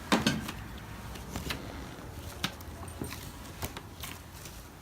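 Homemade borax-and-glue putty being molded and stretched by hand, giving a few scattered sticky clicks and pops, the loudest at the very start.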